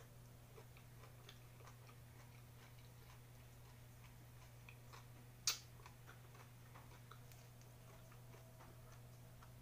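Faint chewing and small mouth clicks picked up close by a clip-on microphone, with one sharper smack about halfway through, over a steady low hum.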